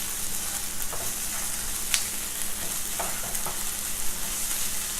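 Onions and ginger-garlic paste sizzling in hot sesame oil in a kadai, with a few light scrapes and taps of a spoon stirring them.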